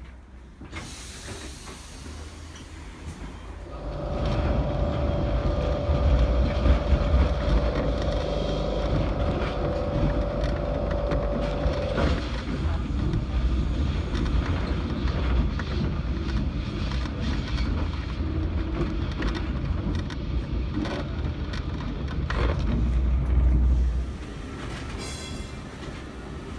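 Vintage Lisbon tram heard from inside its wooden car as it gets going about four seconds in: a heavy rumble and rattle of the car over the rails, with a steady whine for several seconds and many sharp clicks. The rumble drops off suddenly near the end.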